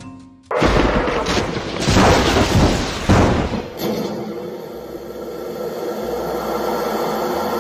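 Intro sound effects: about three seconds of loud, noisy bursts with sharp onsets, then a steadier hum with a few held tones.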